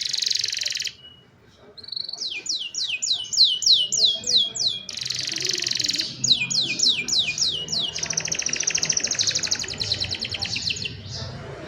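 Young domestic canary song: runs of falling whistled notes, about four a second, alternating with fast rolling trills. There is a brief pause about a second in, and a long trill from about eight to eleven seconds.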